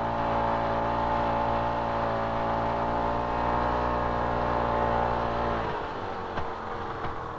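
Snowmobile ("snow buggy") engine running at a steady pitch, then dropping to a quieter, rougher run about six seconds in as it is throttled back.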